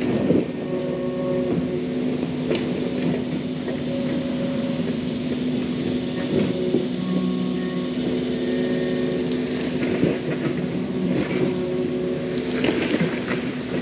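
Yanmar mini excavator's diesel engine running under load with a hydraulic whine that rises and falls as the boom and bucket move. Its bucket drags and scrapes through dirt, with occasional knocks, most near the end.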